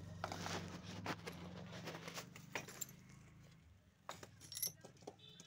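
Scattered hard clinks and knocks of fired bricks being picked up and set down on a stack, over a low steady hum that fades out about three and a half seconds in.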